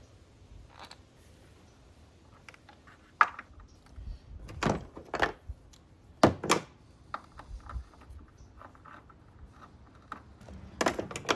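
Battery hold-down clamp knocking and clunking against the battery and tray as it is fitted back in by hand: about six sharp knocks spread through, with quieter clicks and rattles between and a cluster of clunks near the end.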